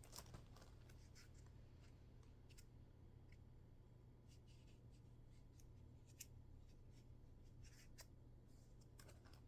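Near silence: a steady low room hum with a few faint, scattered clicks and light rubbing, as of plastic figure parts being handled.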